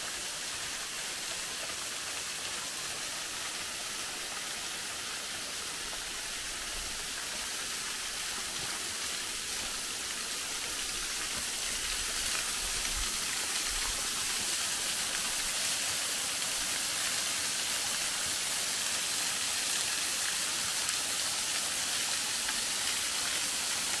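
Butakovsky waterfall: thin streams of water falling down a steep rock face and splashing onto the rocks, a steady hiss of falling water and spray. It grows a little louder about ten seconds in.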